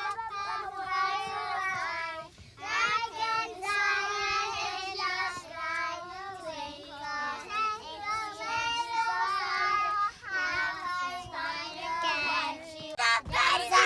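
A child singing a tune in long held, wavering notes.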